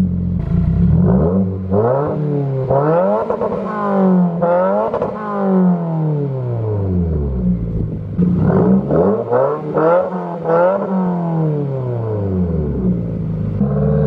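Subaru WRX's turbocharged 2.0-litre flat-four revved through its exhaust. Two clusters of quick throttle blips each send the pitch sharply up, and the revs then fall slowly back toward idle.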